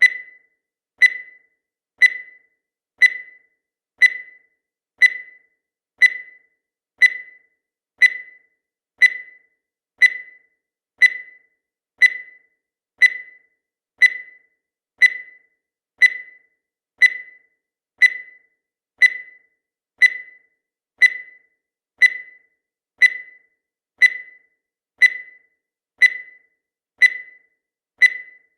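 Countdown timer sound effect: a short, high-pitched tick once every second, each one dying away quickly, in a steady unbroken rhythm.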